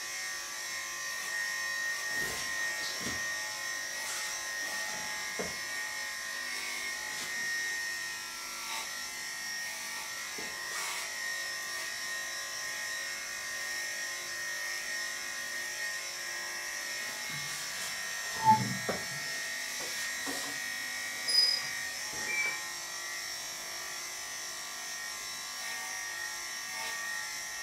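Electric pet grooming clippers running with a steady, even hum while shaving a bichon frise's coat. A few short knocks come about two-thirds of the way through.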